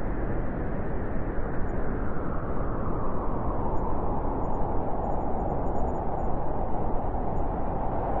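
Blizzard wind blowing hard and steadily, its howl growing stronger about halfway through.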